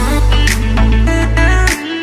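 Background music with a heavy bass line, a melody and a steady beat; the bass drops out near the end.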